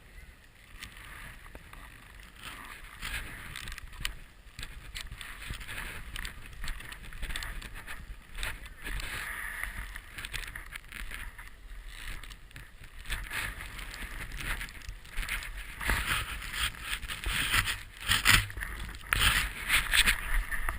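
Snowboard sliding and carving through deep fresh powder, an uneven rushing swish that grows louder over the last few seconds.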